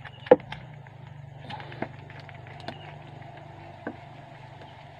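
Handling clicks and knocks from a metal diving flashlight being fitted and screwed back together by hand: one sharp click early on, then a few lighter taps, over a steady low hum.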